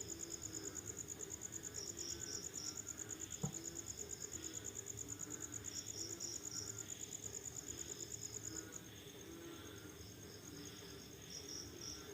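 Night chorus of crickets after rain: a fast, high, pulsing trill that drops to a fainter trill about three quarters of the way through, with a separate cricket giving a group of three chirps every couple of seconds. A lower chorus of frogs calls underneath, and a single sharp click sounds near the start.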